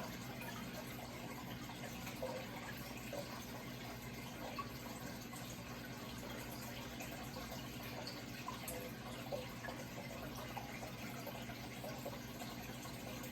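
Running water trickling and splashing steadily, with small drips and splashes throughout, over a low steady hum.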